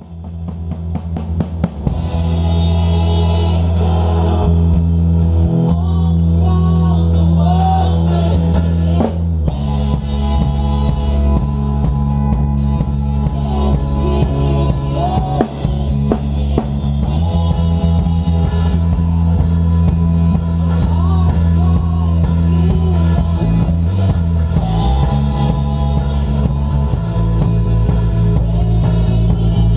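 Live worship band playing a song, with the drum kit up close and loudest, over sustained bass notes and a singing voice. The music swells in from silence over the first couple of seconds.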